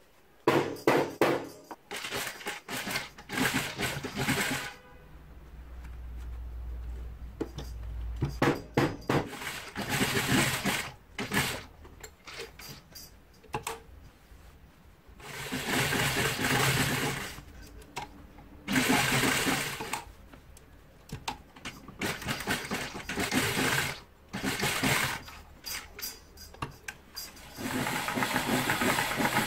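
A few sharp knocks near the start, then a sewing machine stitching through thick denim in repeated stop-start runs of a second or two each.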